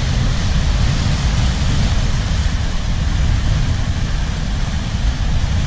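Surf washing in over shoreline rocks, a steady rush of water, with wind buffeting the microphone in a heavy low rumble.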